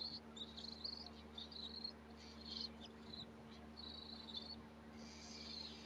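Cockatiel chirping: a series of short, high chirps in quick succession, with a pause in the middle and another run later on.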